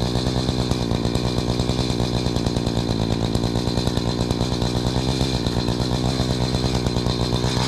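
Two-stroke chainsaw running steadily at an even pitch, with a fast, slightly uneven pulsing beat.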